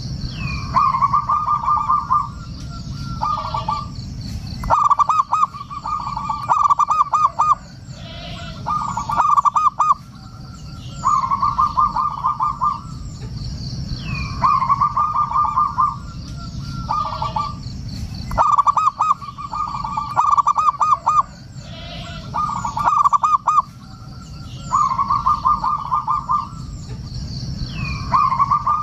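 Zebra dove (perkutut) singing: phrases of rapid staccato coos, each about a second long, repeated over and over with short gaps.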